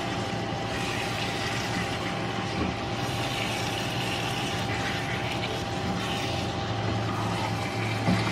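Chicken pieces with onions and tomatoes sizzling in a nonstick frying pan while a spatula stirs and scrapes through them, with a light knock of the spatula near the end. A steady low hum runs underneath throughout.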